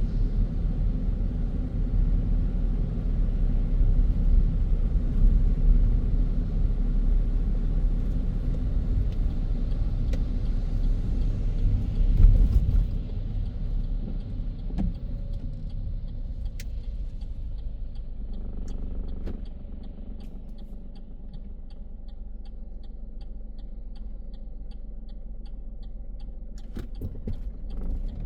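Car road noise from inside the cabin: tyre and engine rumble while driving, easing off about halfway through as the car slows to a quiet idle. Over the idle, a turn signal ticks steadily about twice a second.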